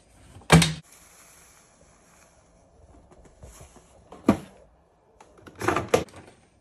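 Front-loading washing machine door swung shut with a loud thud about half a second in. A sharp click a few seconds later, then the plastic detergent drawer is pushed shut with a double knock near the end.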